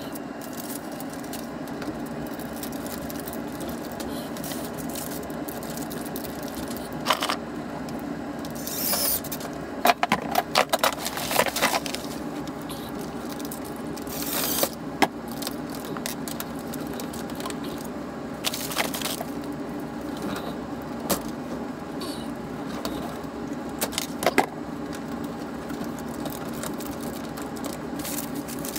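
Steady low hum with scattered clicks, scrapes and rattles of hands-on work, busiest a little past the middle.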